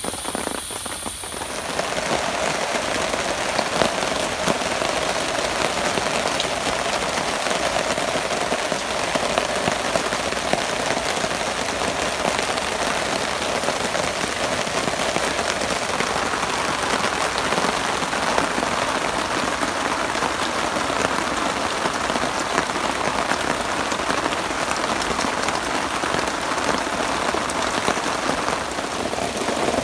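Steady heavy rain falling on tarps and forest foliage. In the first second or so a pressure cooker hisses on the campfire coals, then cuts off.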